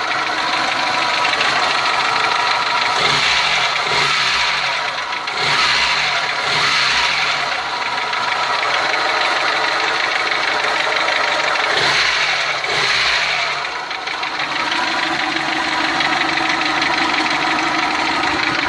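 Lada VAZ-2109's four-cylinder engine running with a knock that has recently appeared; the owner's suspects are the camshaft or the tappets.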